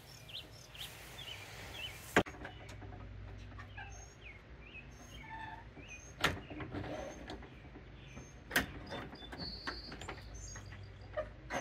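Wild birds chirping, with a few sharp knocks and clicks from the hardware of a wooden privacy-fence gate as its bottom drop rod and top latch are worked.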